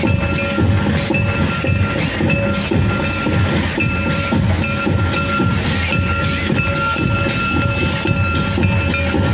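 Santal tumdak' barrel drums beaten by hand in a fast, dense dance rhythm. A steady high tone sounds over the drumming, with short breaks.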